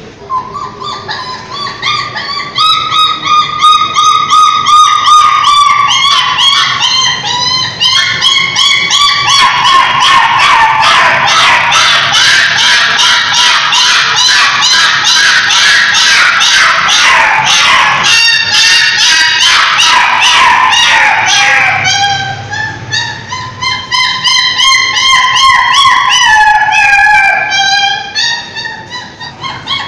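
Puppy whining in long, high-pitched cries that break into a fast run of yelps in the middle stretch, then return to drawn-out whines that slide down in pitch near the end.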